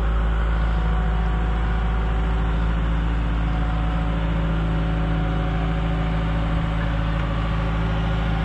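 The 120 excavator's diesel engine running at a steady speed, with no revving.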